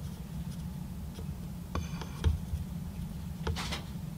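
Soldering a nickel strip to a battery BMS terminal: a steady low hum with a few faint ticks and scrapes of the iron tip and screwdriver on the strip, a brief squeak just under two seconds in, and a short hiss about three and a half seconds in.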